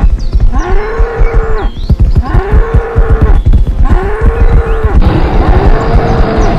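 Cartoon bull mooing sound effect, the same call repeated four times, about once every second and a half, each rising and falling. A fast run of low thumps from the charging bulls' hooves runs underneath.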